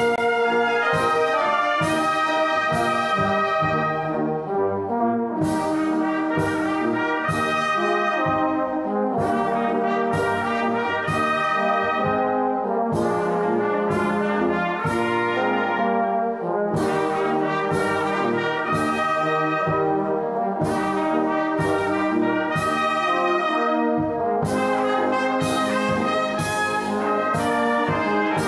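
A brass band plays a hymn: trumpets, trombones, euphoniums and tubas hold full sustained chords that change every second or two over a steady beat.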